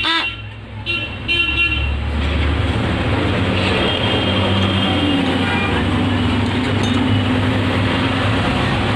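Road traffic running steadily, with a few short vehicle-horn toots in the first two seconds.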